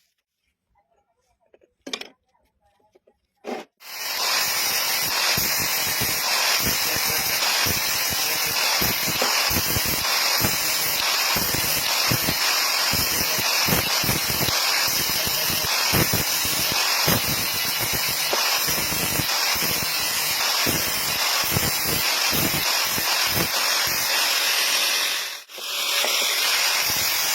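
Electric arc welding on mild steel: the arc's steady, crackling sizzle starts about four seconds in after a couple of faint clicks. It breaks off briefly near the end, then the arc is struck again.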